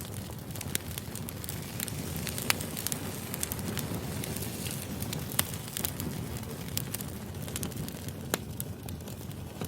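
Wood fire burning: a steady low rumble with scattered sharp crackles and pops from the burning firewood, the loudest pops a little after two seconds and around five seconds in.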